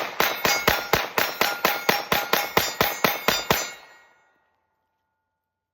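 Glock 19X 9mm pistol fired in a rapid mag dump, a steady string of shots at about four a second that stops a little over three and a half seconds in.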